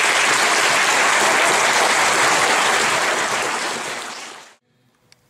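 Audience applauding loudly, a dense wash of clapping that stops abruptly about four and a half seconds in.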